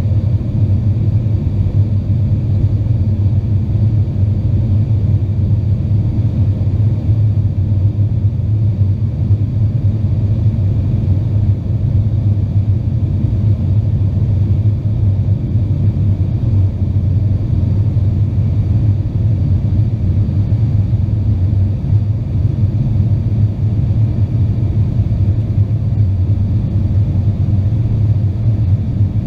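Steady, loud low drone in the cabin of a British Aerospace Avro RJ85 airliner in flight: the noise of its four turbofan engines and the airflow over the fuselage, unchanging throughout.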